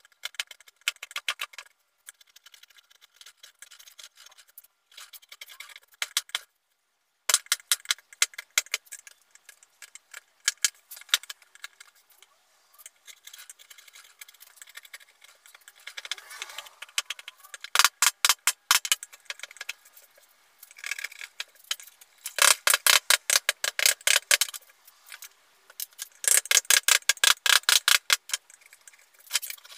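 Runs of quick, sharp taps as a wood-carving chisel is driven into a wooden board with light hammer blows. The taps come in bursts with short pauses between them, and the heaviest runs come in the second half.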